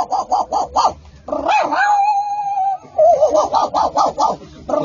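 A dog yipping in quick runs of about eight yips a second, with one long drawn-out whine in the middle.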